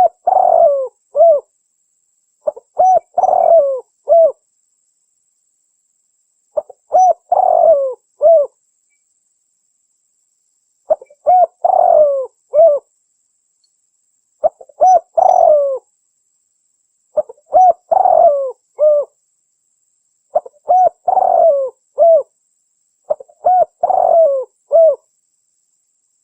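Spotted dove cooing: a short phrase of several coos, repeated about eight times every few seconds with silence between.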